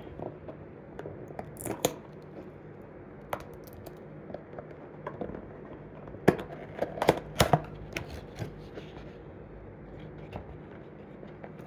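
A die-cast toy car's cardboard box being handled and opened by hand: scattered clicks, scrapes and tearing of packaging, busiest between about six and eight seconds in.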